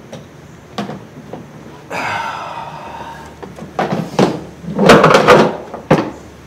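Hand tools and metal parts knocking and clanking while someone works in a truck's engine bay. Scattered sharp knocks, a longer grating sound about two seconds in, and the loudest stretch of rattling clatter about five seconds in.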